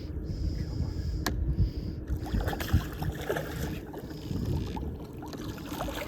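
Low rumbling noise of outdoor air and water around a small fishing boat, with a single sharp click about a second in.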